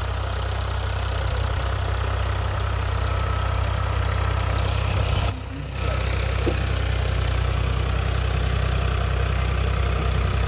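A diesel tractor engine running at a steady, even speed, with a short break about halfway through.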